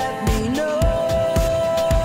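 Background pop music with a steady kick-drum beat, just under two beats a second, and a held melody line that slides between notes.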